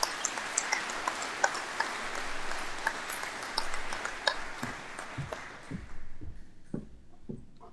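Audience applauding, a dense patter of clapping that dies away about six seconds in, leaving a few scattered low thumps.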